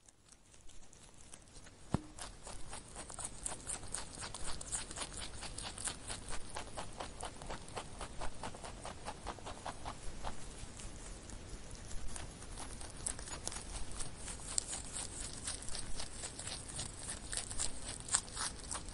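Rabbit chewing vegetables: faint, rapid, irregular crunchy clicks, several a second, starting about two seconds in.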